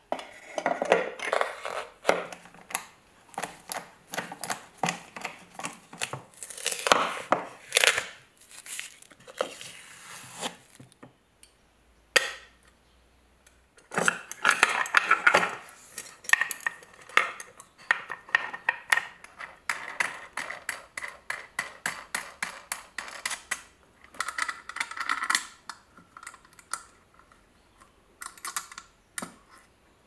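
Small metal parts of a manual coffee grinder clinking and scraping as they are handled and fitted onto the grinder's threaded shaft, with knocks from the wooden box. Irregular clicks come in clusters, broken by a pause of a few seconds about halfway through.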